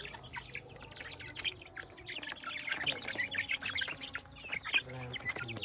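A group of young chickens cheeping and clucking as they feed, many short overlapping calls, busiest from about two seconds in.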